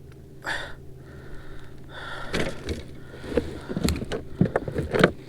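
Water splashing and a quick run of sharp knocks, starting about two seconds in, as a hooked smallmouth bass is fought to the kayak.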